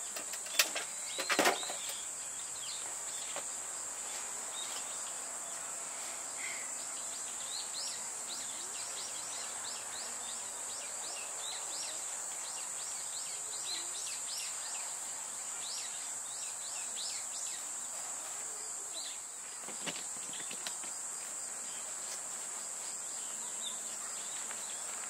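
Woodland summer ambience: a steady high-pitched insect drone with many short bird chirps over it. A couple of sharp knocks in the first two seconds and one more near the end.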